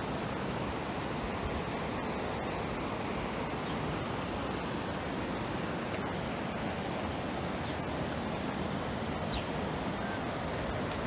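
Steady rush of flowing creek water, with a faint high, even drone of insects over it.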